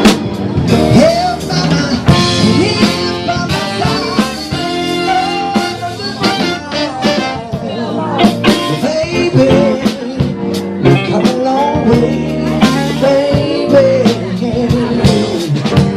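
Live band playing a song: a bending lead melody line over a steady beat, with no words sung in this stretch.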